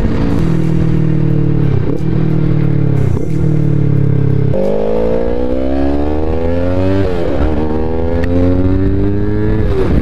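Yamaha YZF-R3 parallel-twin engine through a Two Brothers full-system exhaust, heard on board at high revs. For the first few seconds it holds a steady pitch. About halfway through, under full acceleration, the revs climb in long rising runs that drop sharply at upshifts about seven seconds in and near the end.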